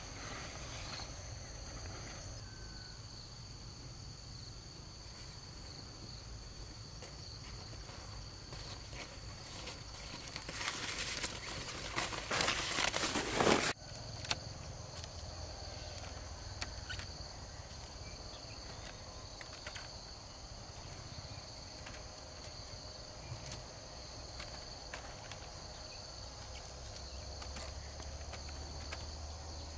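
Insects trilling steadily on two high pitches, with scattered light clicks and rustles. Near the middle a loud rustling noise lasts about three seconds and cuts off suddenly.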